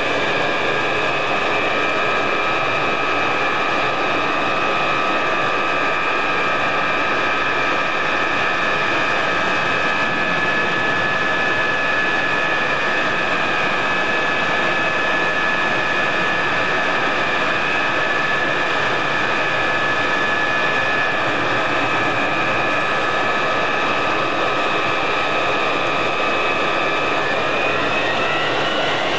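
Mirage III jet fighters' Atar 09C turbojets running at taxi power: a steady high whine over a rushing hiss, the whine rising in pitch near the end.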